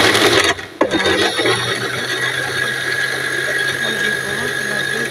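Electric mixer grinder grinding roasted tomatoes, green chillies and garlic into chutney. It runs in a short burst, stops briefly under a second in, then runs steadily with a low hum.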